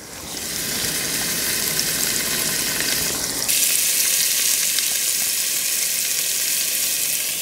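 Pompano fillets frying in hot olive oil in a pan: a steady sizzle that shifts suddenly to a brighter, hissier sizzle about three and a half seconds in.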